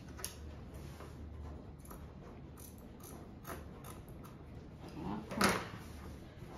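Scissors snipping through flat black elastic band, with small clicks and rustles of the elastic and tape measure being handled on a cutting mat. About five seconds in comes a louder, brief rustling swish as the elastic is pulled across the table.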